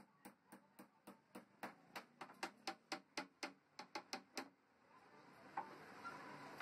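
Claw hammer tapping lightly on the edge of a laminated MDF podium panel, about four quick taps a second, stopping about four and a half seconds in.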